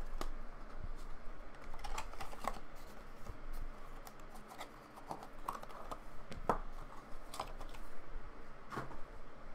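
Hands handling trading-card packaging: scattered light clicks, taps and rustles of plastic wrap and a cardboard box, with a few sharper clicks in the second half as a card in a hard plastic holder is handled.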